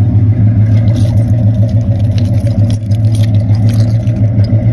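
A loud, steady low-pitched drone from the old car, with faint light scuffs over it.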